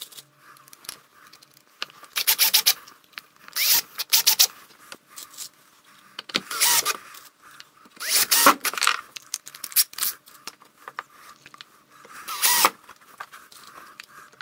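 A power screwdriver driving screws in about five short bursts, each half a second to a second long, with small rattles and ticks of handling between them, as 12 mm strips are screwed on to clamp an oak chopping board in place.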